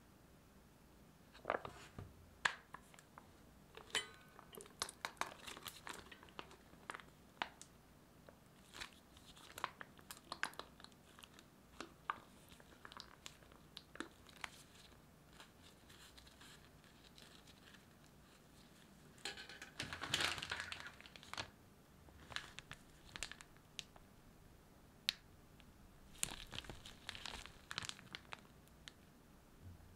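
Plastic crinkling and rustling as a jam pouch and a plastic piping bag are handled and filled, with scattered small clicks and taps; a longer stretch of rustling about twenty seconds in.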